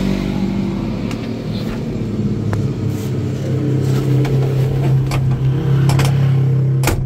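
Toyota Starlet's engine idling steadily through its racing exhaust, a low even hum that holds one pitch. A few sharp clicks come over it, the loudest near the end.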